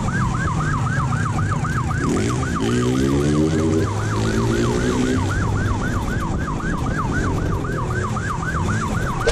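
Police motorcycle siren in a rapid yelp, about four sweeps a second. Under it the pursuing police motorcycle's engine runs, its note rising and falling about two to five seconds in.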